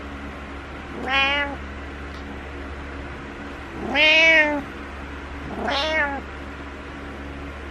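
Domestic cat meowing three times, needy meows for attention: about a second in, around four seconds, and near six seconds. The middle meow is the longest and loudest.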